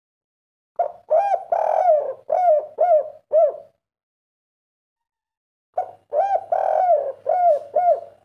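Spotted dove (derkuku) cooing its 'kuk 3' song in two bouts of quick, arched coos, each about three seconds long. The first starts about a second in, the second about six seconds in.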